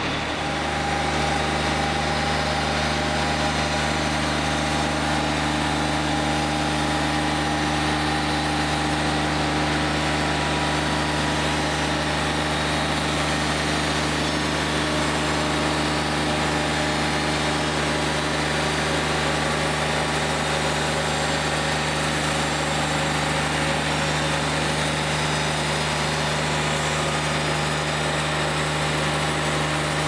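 Wood-Mizer LT40 Wide band sawmill running steadily, its engine humming while the band blade travels through a white oak timber, with a constant hiss of the cut over the engine's drone.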